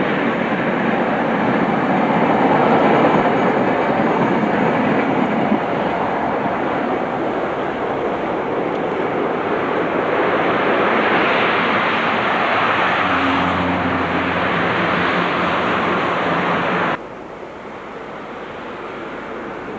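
Loud, steady vehicle and rail running noise in traffic, with a low steady hum joining about two-thirds of the way through. It drops abruptly to a quieter, steady road noise near the end.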